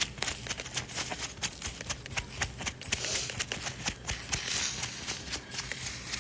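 Dry tobacco leaf wrap being handled and crinkled close to the phone's microphone: rapid, irregular crackling.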